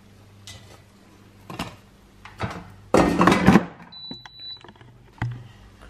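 Kitchen items being handled on a worktop: a few light knocks and one louder clatter about three seconds in, over a steady low electrical hum. A short high electronic beep sounds about four seconds in.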